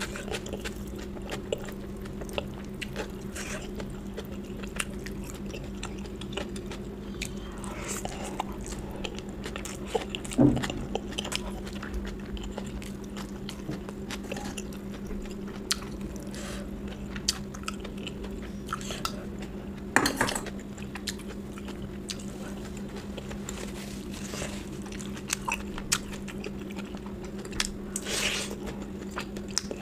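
Close-up eating sounds: a person chewing and biting food, with many small mouth clicks and a few louder knocks, over a steady low hum.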